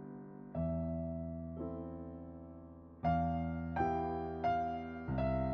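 Background piano music: a slow, gentle melody of single notes and chords, each struck and left to ring and fade.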